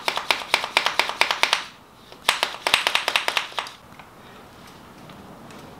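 Hand shock pump being worked in quick strokes to pressurise a mountain bike's rear air shock toward about 220 psi: two runs of rapid sharp clicks, a brief pause between them, stopping a little past halfway.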